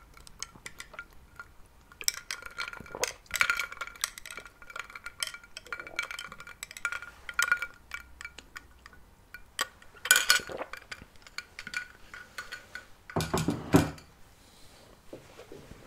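Irregular light clinks and taps of small hard objects, many leaving a short ringing note. About 13 seconds in there is a louder, fuller knock and handling sound.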